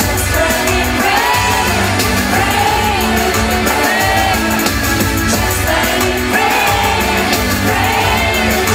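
A female singer singing live into a handheld microphone over an amplified pop backing track, with held notes that bend in pitch over a steady bass.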